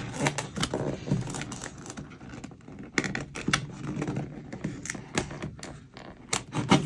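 Fingers picking and scraping at the flap of a small cardboard box, making irregular light scratches, clicks and taps as the stuck flap resists opening.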